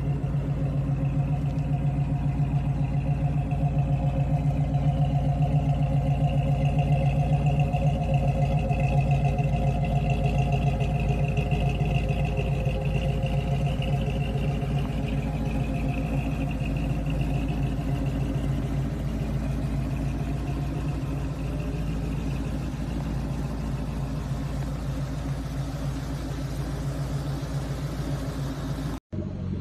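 Second-generation Ford Bronco's V8 idling steadily.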